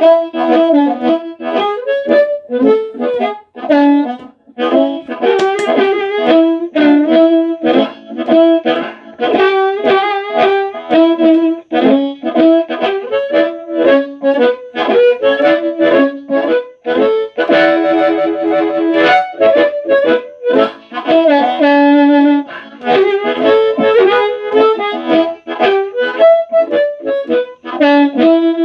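Blues harmonica amplified through a Turner 22D microphone, a small PAM8403 3-watt amplifier board and a 12-inch Alnico speaker, played in phrases of bent and shaken notes. A fast warble comes about two-thirds of the way through, and the playing ends on a held note.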